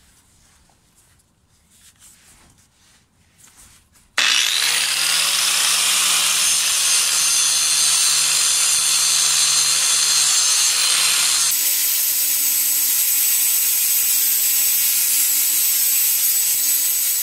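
Electric angle grinder switched on about four seconds in, spinning up with a rising whine, then grinding loudly through a seized steel bolt on a catalytic converter's exhaust flange. About eleven seconds in the grinding hiss lightens while the motor keeps running.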